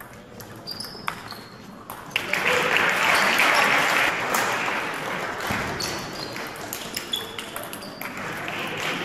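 Table tennis ball clicks and shoe squeaks on a sports-hall floor during a rally. About two seconds in, loud crowd voices and shouts swell up and slowly die away, then rise again near the end.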